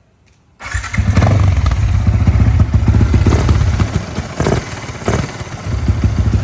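A Yamaha Exciter motorcycle's modified single-cylinder engine starts about half a second in and settles straight into a steady idle with a fast, even beat. The seller calls it smooth-running.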